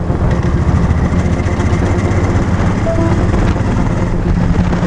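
A cruiser motorcycle's engine runs steadily as the bike rides along at an even speed, heard from on board with road and wind noise.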